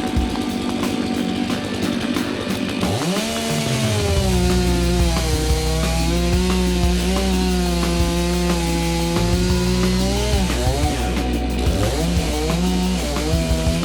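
Husqvarna two-stroke chainsaw revving up about three seconds in and held at full throttle while cutting birch, easing off near the ten-second mark and revving again shortly after. Rock music plays underneath.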